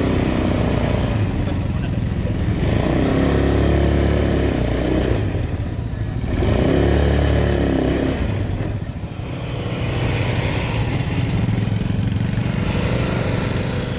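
Small off-road vehicle engines (ATVs) running, with the throttle opened up twice in rising-and-falling revs as the riders try the acceleration.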